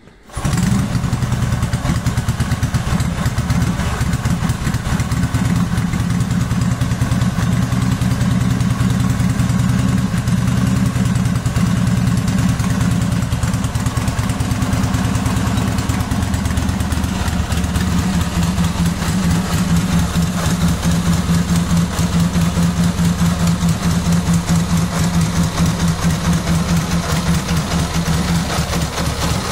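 1927 Husqvarna Model 180's 550 cc V-twin engine starts about half a second in and then idles steadily.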